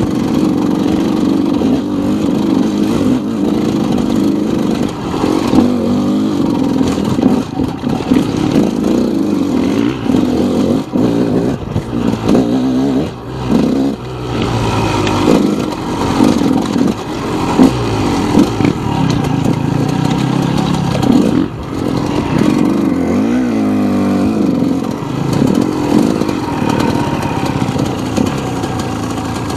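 KTM enduro dirt bike engine revving up and down as it is ridden over a rough forest trail, with knocks and clatter from the bike over rocks and roots. It eases off slightly near the end.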